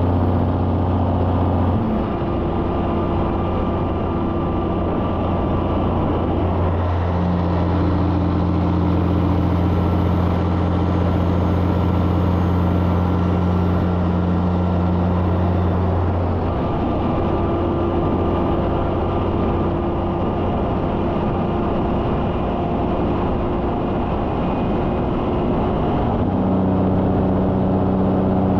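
Cabover semi-truck's diesel engine running steadily at highway speed, with a constant rush of tyre and wind noise. The engine's low drone changes tone a few times along the way.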